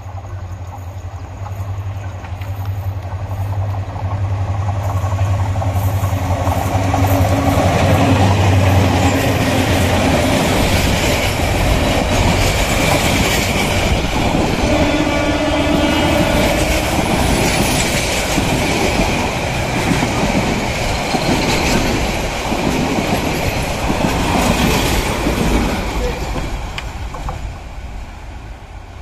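Diesel locomotive approaching with a steady low engine drone. Then passenger coaches pass close by with the clickety-clack of wheels on the rails, and the noise fades near the end as the train moves away.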